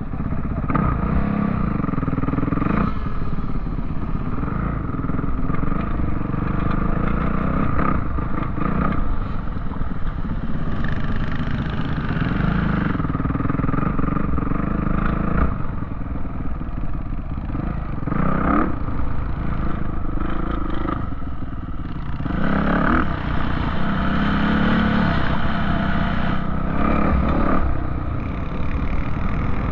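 An off-road vehicle's engine running loud and steady, revving up and easing off several times, with scattered clattering knocks.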